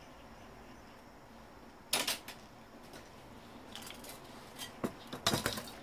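Scattered clicks and clinks of small parts from a dismantled CRT monitor being handled, in a few short bursts with quiet between; the densest cluster comes near the end.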